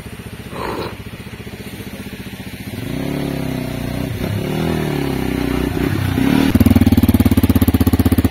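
Motorcycle engine running low at first, then revved repeatedly from about three seconds in, its pitch rising and falling, and getting loudest near the end as the bike is ridden up a steep off-road section.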